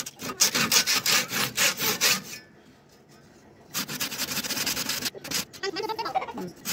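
Hand saw cutting through a thin wooden pole with rapid back-and-forth strokes, in two runs with a pause of about a second and a half between them.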